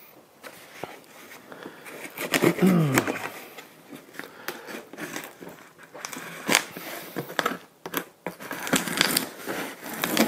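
A blade cutting through packing tape on a cardboard shipping box: scraping, crinkling and tearing of tape and cardboard, with a quick series of sharp scrapes and clicks in the second half. A short falling squeak comes about two and a half seconds in.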